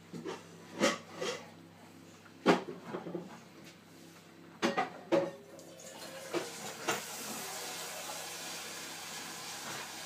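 Scattered knocks, thumps and scuffles of a large dog and a cat play-fighting, with sudden sharp hits about one, two and a half, five and seven seconds in. A steady rushing hiss sets in about six seconds in.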